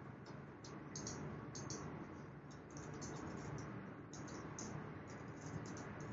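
Faint, irregular small clicks and taps over a low steady room hum.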